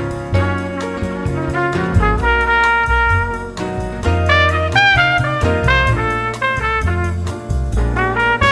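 Jazz recording with a trumpet lead over a moving bass line and a steady beat.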